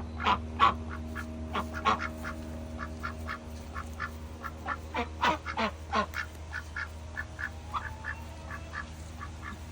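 Domestic ducks quacking in a rapid string of short calls, busiest at the start and again about five seconds in, over a steady low hum.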